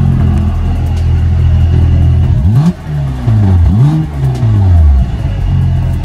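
Mercedes-AMG C43's twin-turbo V6 through an Armytrix cat-back exhaust with its valves closed: idling steadily, blipped twice near the middle with the pitch rising and falling, then settling back to idle.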